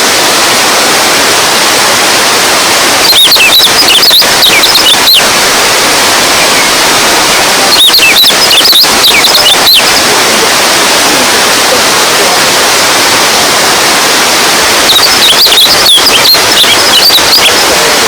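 Running water, a steady loud rush. Three brief spells of short, quick high-pitched chirping notes sound over it.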